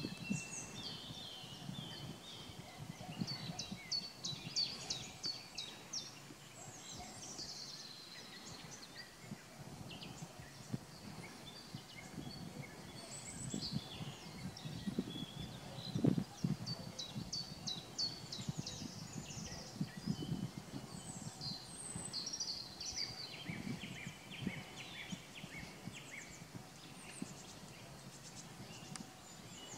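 Small songbirds singing and calling, a steady scatter of short high chirps and quick trills. Low rumbling runs under it, with a low thump about halfway through.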